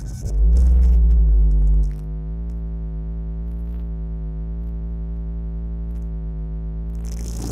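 Car engine just after starting, running fast and louder for about a second and a half, then dropping to a steady, even idle.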